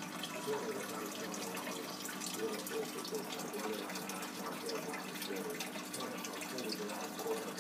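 Fish-tank water trickling and bubbling from a submersible aquarium filter pump, with a steady low hum from the pump.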